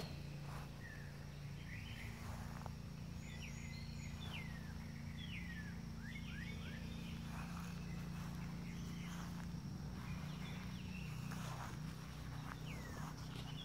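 Birds chirping outdoors with many short, downward-sliding calls, over a steady low hum and a faint, steady high insect drone.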